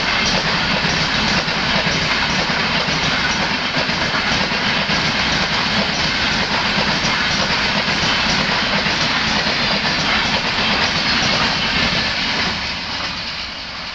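Train running along the track: a steady, loud rumble and rattle of wheels on rails that grows quieter near the end.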